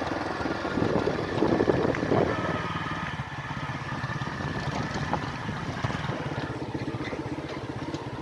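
Motorcycle engine running steadily while the bike is ridden, swelling briefly about a second in, with some wind noise on the microphone.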